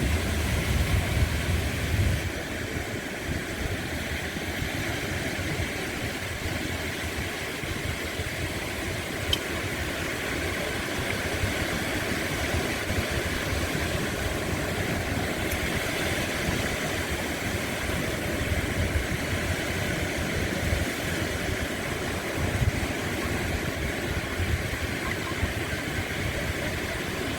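Ocean surf, waves washing onto the shore in a steady rush.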